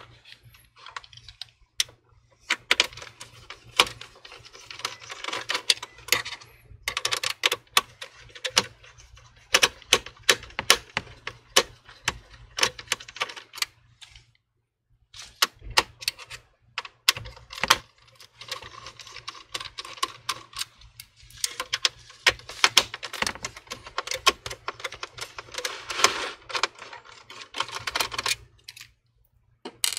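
Bursts of quick, light clicks and tapping mixed with scraping, from hands and a screwdriver working small parts on the opened all-in-one computer's metal chassis, with short pauses between.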